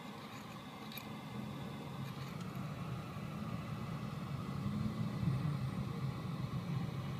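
Car running in slow traffic, heard from inside the cabin: a steady low engine and road hum that grows slightly louder as it moves along, with a couple of faint clicks about one and two seconds in.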